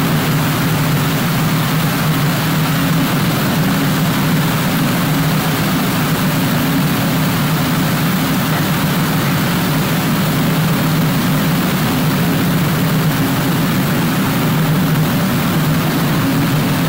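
Forge running in a blacksmith shop: a steady roar with a low hum underneath, unbroken, with no hammer blows.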